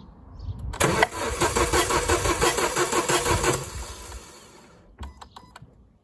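Renault Scenic four-cylinder petrol engine turned over on the starter motor for about three seconds with its plugs and coils out, giving an even pulsing as each piston pumps against the compression gauge. This is cranking for a compression test. It is followed by a few sharp clicks.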